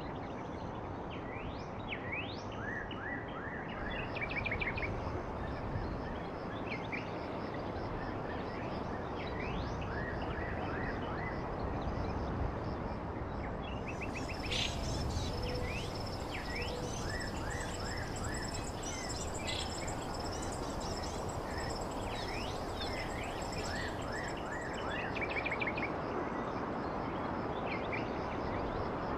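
Small birds chirping in short repeated sweeping calls over a steady outdoor background hiss. A thin, steady high whine joins about halfway through and stops about ten seconds later.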